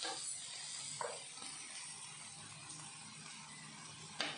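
Faint steady sizzle of chicken grilling in a pan, with a light click about a second in and a sharper knock near the end.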